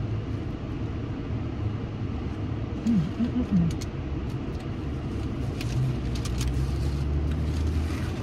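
Steady low rumble of an idling car, heard from inside the cabin, with a few light crinkles of a paper burger wrapper and a short hummed "mmm" about three seconds in.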